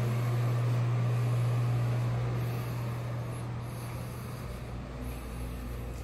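Steady low hum of a ventilation fan with a rush of air over it, growing quieter about halfway through.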